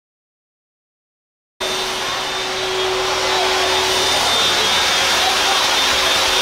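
Dead silence for about a second and a half, then a loud, steady machine whir cuts in and keeps going, with a faint steady tone in it, in a set-building workshop.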